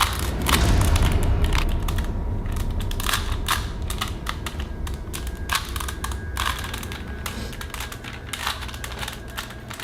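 Rubik's Cube being twisted by hand: quick, irregular plastic clicks and clacks as its layers turn, over a low rumble that is strongest in the first couple of seconds and slowly fades.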